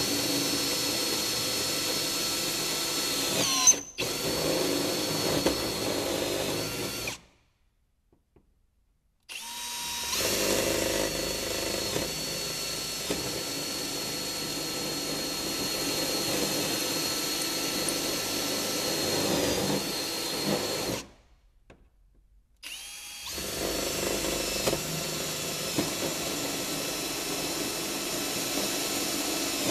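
Cordless Milwaukee drill boring 3/16-inch holes through a snowmobile's tunnel: three long runs of a steady motor whine, with short stops about seven seconds in and again about twenty-one seconds in.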